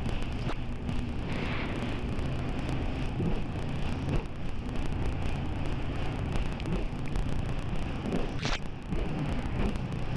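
Boat engine humming steadily on the open sea, mixed with wind and water hiss. There is a short rush of noise about eight and a half seconds in.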